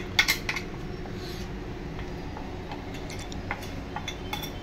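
Kitchen crockery and utensils clinking as they are handled: a quick cluster of clinks at the start, then a few scattered light clinks near the end, over a steady low hum.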